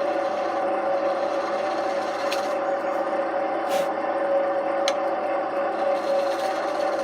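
Record CL3 wood lathe running with a steady hum while a turning tool scrapes and cuts into a spinning green sycamore bowl blank. There are a few short ticks along the way.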